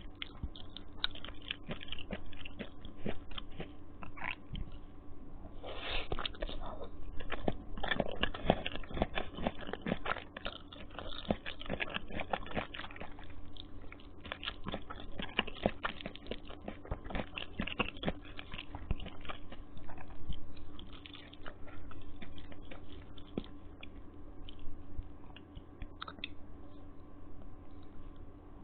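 Close-up wet chewing and mouth sounds of someone eating Maggi instant noodles, with irregular smacks and clicks throughout.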